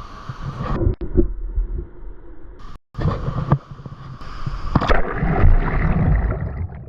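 Water sloshing and gurgling close to the microphone, in a few short clips cut together, with abrupt changes and a brief dropout partway through.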